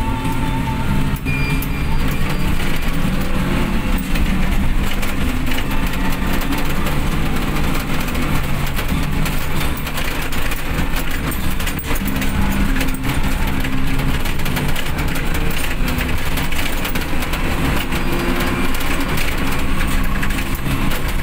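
Steady engine and tyre noise of a vehicle driving on a wet road, heard from inside the cabin.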